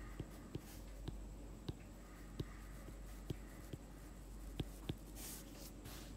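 Faint, irregular taps and short scratches of writing on a surface, about a dozen in all, over a steady low hum.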